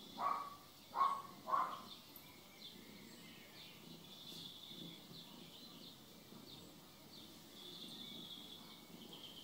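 Three short animal calls in the first two seconds, then faint, steady bird chirping in the background.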